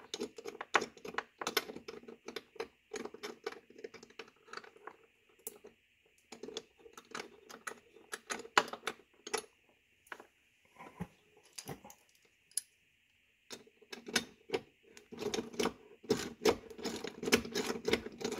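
Quick, irregular light clicking and rattling as a Lincoln Town Car door striker bolt, fitted with a new bushing, is worked and threaded into the door pillar by hand, with a short lull about two-thirds of the way through.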